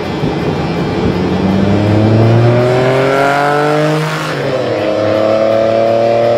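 V6-swapped Toyota MR2 accelerating hard, its engine note climbing steadily, dropping sharply about four seconds in as it passes, then pulling on at high revs.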